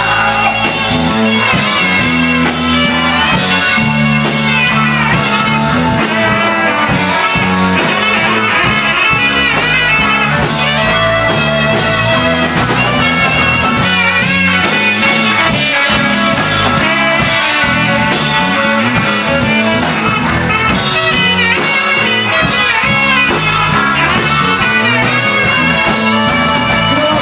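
Instrumental break of a rock song: the full band plays on with guitar and a melodic lead line between sung verses.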